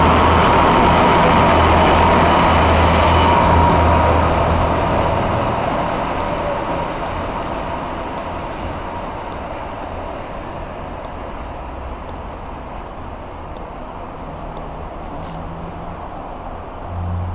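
Class 144 Pacer diesel railbus pulling away past close by, its underfloor diesel engine humming and wheels running on the rails, with a high ringing squeal for the first few seconds. The sound then fades steadily as the unit draws away.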